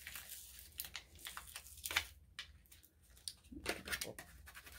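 Faint crinkling and rustling of paper-backed vinyl transfer tape, pressed onto a decal and then peeled away from its backing, in short crackly bursts.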